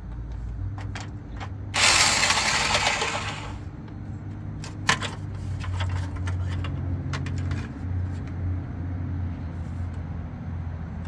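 Corded electric impact wrench running in one burst of about two seconds on a plastic lug-nut cover that only spins. Scattered plastic clicks and knocks follow as the hubcap is worked off the wheel.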